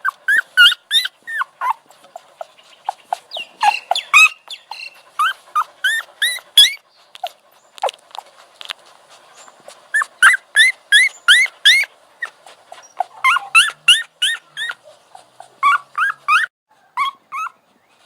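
Puppy yipping and whimpering: runs of short, high-pitched rising yelps, several a second, broken by brief pauses.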